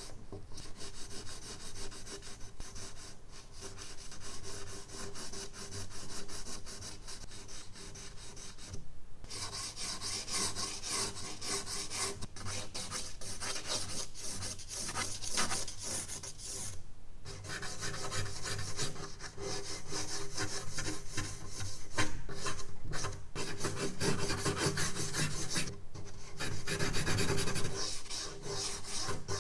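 Charcoal stick scratching and rubbing across medium-surface sketch paper in quick strokes as a portrait is drawn, with a few brief pauses.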